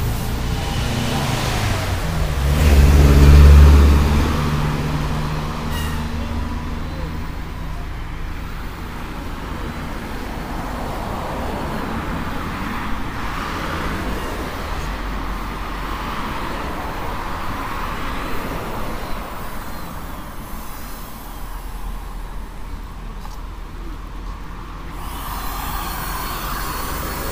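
Road traffic on a city street. A motor vehicle's engine rumble passes close and loud about three seconds in, then a steadier background of passing traffic.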